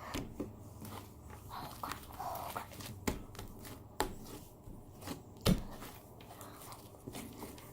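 Homemade borax slime being squished and stretched by hand, with scattered sticky clicks and pops. The loudest pop comes about five and a half seconds in.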